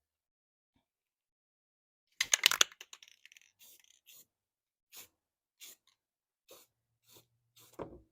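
A loud burst of clattering clicks about two seconds in, then a few single light taps spaced roughly half a second to a second apart: things being handled and set down.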